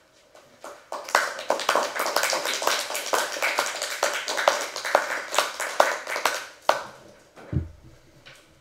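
Audience applauding. The clapping starts about a second in, runs dense and irregular, and fades out after about six seconds. A dull low thump follows near the end.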